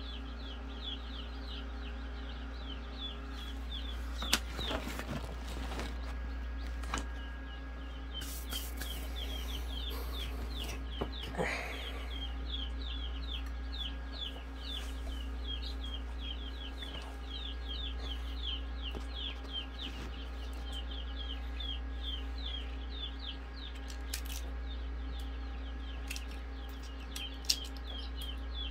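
Newly hatched chicks peeping continuously, short falling peeps about three a second, over a steady low hum. A few sharp taps of an egg being cracked on wood break in now and then.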